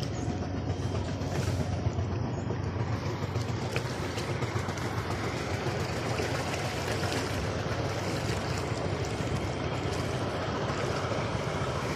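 Steady low rumble of a running vehicle engine, with an even hiss over it.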